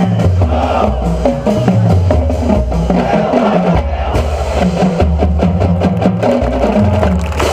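Marching band playing a drum-heavy passage: the drumline's bass drums and many sharp, clicking stick hits over a low bass line.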